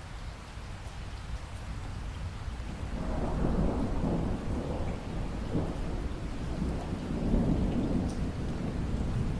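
Steady rain falling, with a long rumble of thunder that builds about three seconds in and rolls on to the end.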